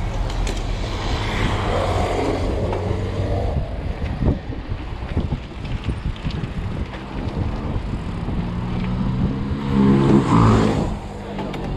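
Passing car traffic with steady wind and road rumble on a moving bicycle's microphone. About ten seconds in, a louder engine drone rises and fades as a vehicle goes by close.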